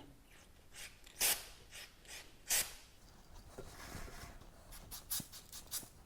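Aerosol chain cleaner sprayed onto a motorcycle drive chain in short hissing bursts, the two loudest about a second and two and a half seconds in, with fainter, shorter ones after.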